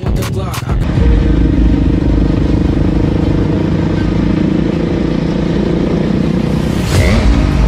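Dirt bike engine running at steady revs, with a brief rush of noise near the end.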